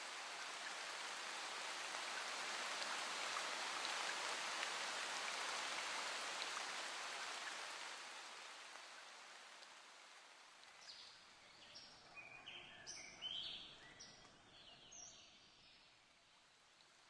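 A steady rushing noise like rain or running water swells and then fades away over the first ten seconds. Birds then chirp in short, high notes for about five seconds.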